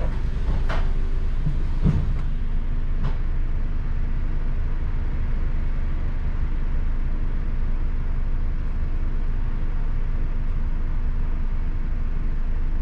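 Inside a moving double-decker bus: a steady low engine rumble and hum, with a few short knocks or rattles in the first three seconds, the loudest about two seconds in.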